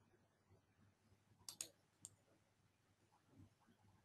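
Near silence broken by a few faint computer mouse clicks: a quick double click about a second and a half in, then a single click half a second later.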